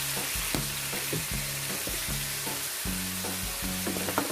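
Minced pork and garlic sizzling steadily in hot oil in a wok, with background music with a steady beat underneath.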